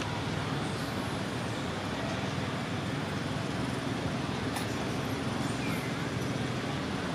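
Steady outdoor background hum and hiss, a low mechanical drone like distant road traffic, with one sharp click about four and a half seconds in.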